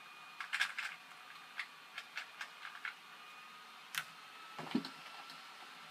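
Plastic 2x2 speed cube being turned by hand, its layers clicking faintly: a quick run of clicks about half a second in, then single clicks every fraction of a second, one more click at about four seconds and a duller knock shortly after.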